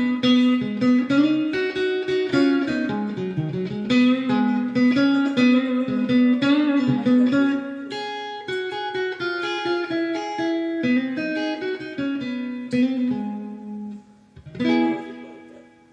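Electric guitar, a Squier '70s Vintage Modified Stratocaster fitted with Fender Custom Shop Texas Special pickups, played through a Fender Mustang III v2 amp's '57 Deluxe model with spring reverb: a run of picked single notes and double-stops. A final chord is struck about a second before the end and rings out, fading away.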